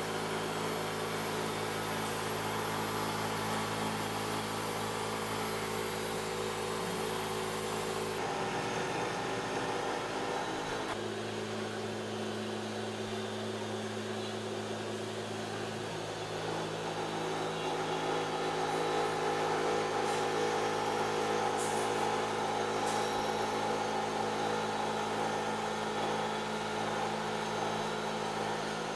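Steady mechanical hum of a running machine or engine. Its tone changes abruptly a few times partway through.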